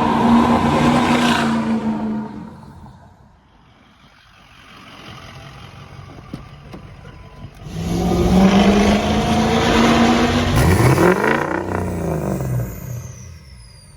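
Ford 6.0 Power Stroke V8 turbo diesel accelerating through a 5-inch Flo Pro exhaust. It is loud for about the first two seconds, fades, then comes back loud about eight seconds in, its pitch bending as it goes by. Near the end a high whistle falls in pitch.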